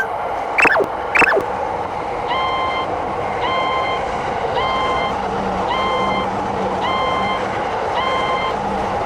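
Electronic railroad crossing alarm starting to ring, a stacked electronic tone repeating about once a second, over a steady rushing train noise. Two short rising-and-falling tones sound about half a second and a second in.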